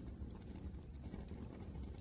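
Wood fire crackling in a fireplace, with irregular small pops and snaps over a low steady rumble.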